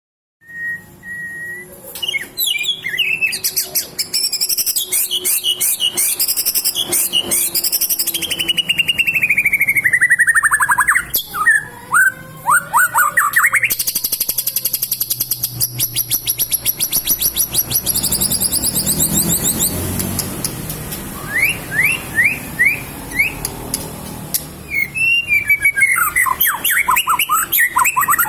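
White-rumped shama (murai batu) singing a long, varied song of whistles, rapid trills and falling glides, filled with phrases learned from cililin and lovebirds.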